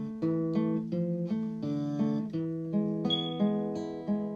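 Background music: an acoustic guitar playing a run of plucked notes, a few notes a second.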